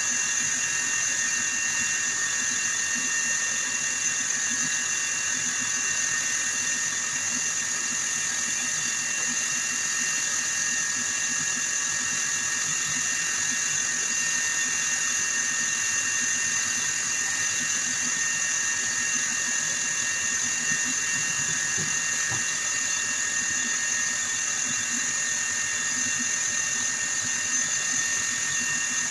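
Small lathe running steadily with a high-pitched motor whine while abrasive paper is held against the spinning metal workpiece to polish it.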